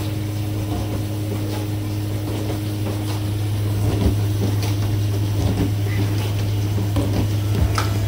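Frigidaire dishwasher running its wash cycle: a steady low hum of the wash pump motor with water spraying and sloshing inside the tub, and a few faint knocks.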